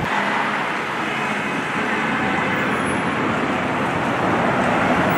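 City street traffic: cars driving past on a busy avenue, a steady noise of tyres and engines.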